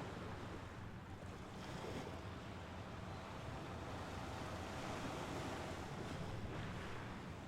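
Mediterranean sea waves washing onto the shore: a steady wash of surf that swells twice, once about two seconds in and again near the end.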